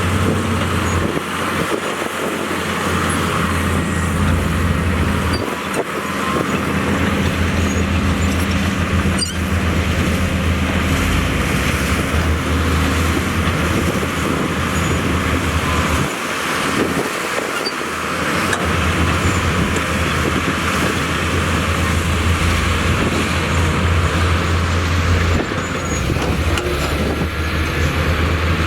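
Heavy diesel earthmoving machinery working, with a steady low engine note over a broad mechanical clatter. The engine note falls away briefly about five seconds in and again around sixteen seconds in, then comes back up.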